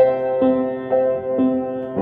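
Soft background piano music, with a new note struck about every half second.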